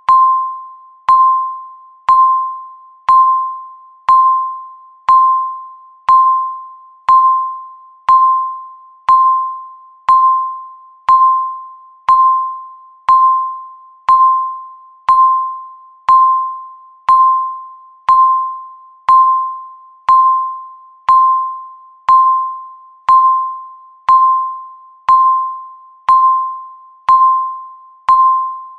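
Countdown timer beeping once a second: a single electronic tone that starts sharply and fades away before the next, each beep marking one second counted down.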